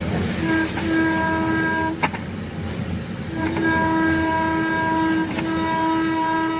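Electric motor run from an ABB drive with an encoder giving a steady, pitched whine with overtones, the abnormal noise it makes in speed-control mode. The whine breaks off with a click about two seconds in and comes back about a second later.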